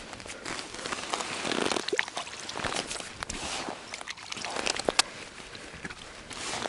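Hands rubbing together and brushing over the snow-crusted ice, a rustling with small crunches and crackles.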